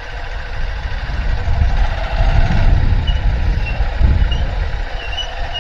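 A two-wheeler's engine running and wind buffeting the microphone while riding along, heard as a fluctuating low rumble. A few faint, short high chirps come in the second half.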